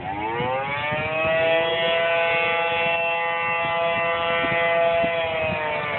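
Outdoor warning siren winding up: its pitch rises over the first two seconds, then holds a steady tone that sags slightly near the end. A tornado warning siren sounding.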